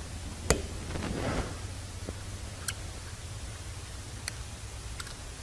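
A few light, sharp clicks of a screwdriver and small metal parts against a carburetor body as a mixing tube is unscrewed, the sharpest about half a second in, over a low steady hum.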